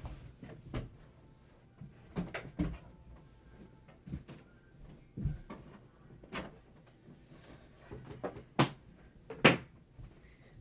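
Scattered clicks and light knocks from handling a USB-C to HDMI adapter and its cables, plugging connectors in, with two sharper clicks near the end.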